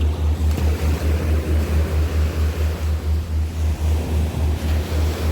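Surf washing on a beach, with a loud low throb underneath that pulses about five times a second.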